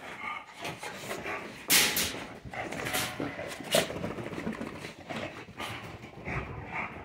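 American Bully dogs moving about and making small dog sounds, with a few sharp knocks, the loudest about two seconds in and again near four seconds.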